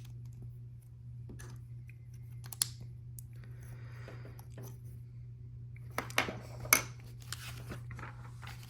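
LEGO plastic pieces being handled and pressed together: scattered light clicks and clatters, with a sharp click about two and a half seconds in and a cluster of louder clicks around six to seven seconds in, over a steady low hum.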